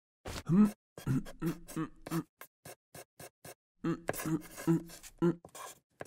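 A cartoon character's short hummed or mouthed syllables in a quick rhythm, in two runs, with sharp little scratching clicks between them, about four a second: quill pen strokes on parchment.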